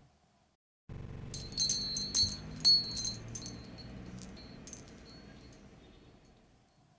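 Metal-tube wind chime tinkling: a cluster of high, ringing strikes starts about a second in, then thins out and rings away near the end.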